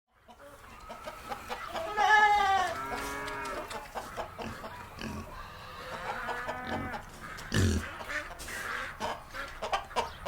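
Chickens clucking in a farmyard, with several drawn-out calls (the loudest about two seconds in) over scattered small knocks, and a dull thump later on.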